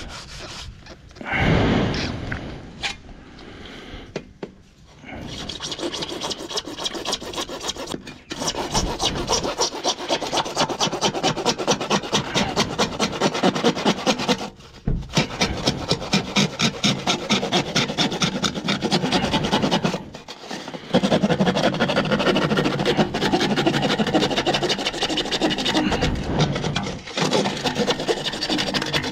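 Hand saw cutting through a buried PVC stormwater pipe: fast, steady back-and-forth rasping strokes that stop briefly three times. Before the sawing starts there are a few seconds of irregular handling knocks and scrapes.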